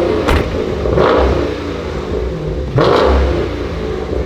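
Dodge Challenger 392 Scat Pack's 6.4-litre HEMI V8 revving through an exhaust with the mid muffler deleted, surging up three times over a deep, loud rumble.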